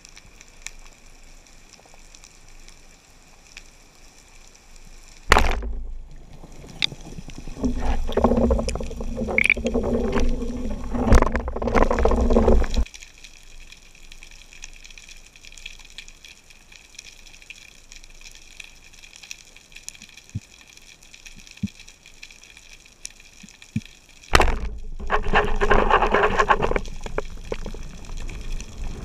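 Underwater sound through a camera housing: a faint steady crackle of the sea, broken twice by loud stretches of low, rushing water noise, the first from about five seconds in to about thirteen, the second starting suddenly near the end.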